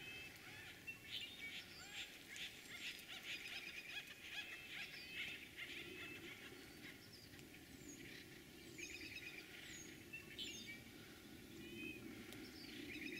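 Faint wild birdsong: scattered chirps and quick trills from small birds, with several short falling whistles in the middle stretch.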